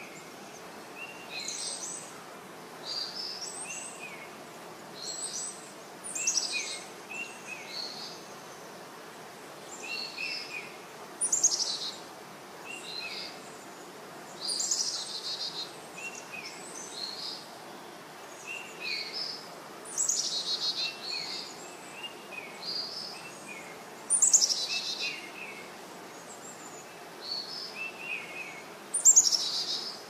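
Birds chirping: a continuous run of short, high chirps, with a louder call that slides downward every few seconds.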